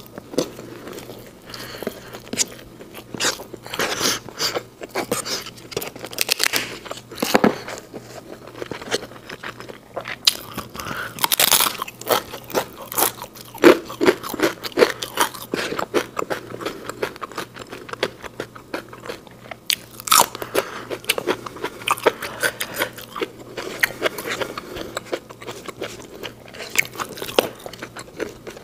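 Close-miked chewing and biting of fried rice and crisp fried food, eaten by hand, with irregular crunches and crackles throughout.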